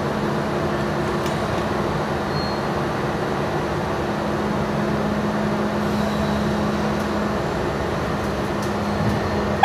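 Steady hum of an R32 subway train standing in the station, with a low, even tone running under it.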